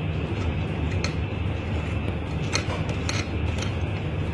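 A metal spoon spreading glaze on cookies on a paper plate, making a few light clicks and scrapes, over a steady low background rumble.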